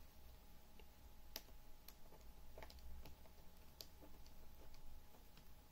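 Faint, scattered clicks of a tiny screw being fastened into the corner mounting hole of a laptop's replacement screen panel.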